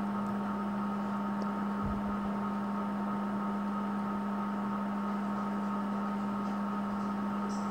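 Semolina-and-egg batter fritters deep-frying in hot oil in a cast-iron karahi, a steady sizzle, under a constant electrical hum that is the loudest sound.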